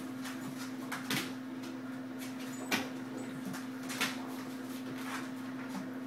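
Claws clicking and paws knocking on a vinyl kitchen floor as an English bulldog puppy and a Briard scramble and play-wrestle, with a few louder knocks over a steady hum.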